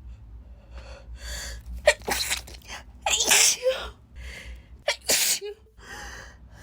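A woman sneezing several times in a row, a fit of sharp sneezes with breathy gasps between them.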